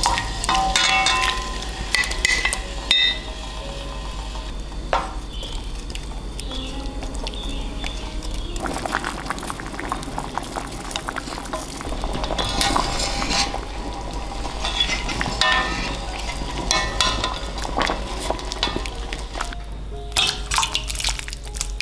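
Raw potato sticks slid from a plate into a stainless pot of boiling water, with light clinks at the start. Then the water bubbles as a wooden spoon stirs the fries, and near the end they are lifted out with a wire strainer into a steel bowl of water, with a few small clinks.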